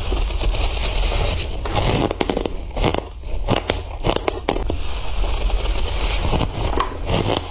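Close-miked biting and crunching of flaky freezer frost, bite after bite in a dense run of crackly, crunching noise.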